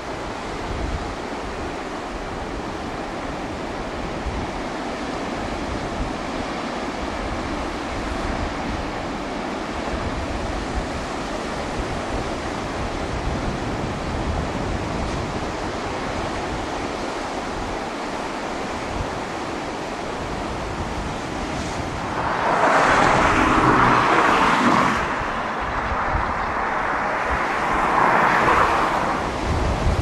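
Pacific surf breaking and washing over a rocky shore, a steady rush of waves with two louder surges about two-thirds of the way through and near the end.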